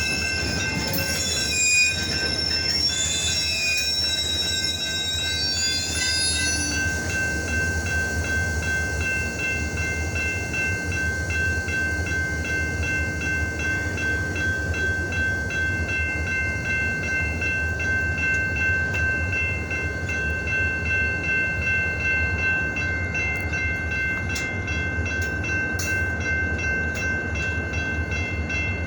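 Freight train rolling slowly over a low, steady rumble, its steel wheels squealing against the rails. The squeal wavers in pitch for the first six seconds or so, then settles into a steady high squeal that holds to the end.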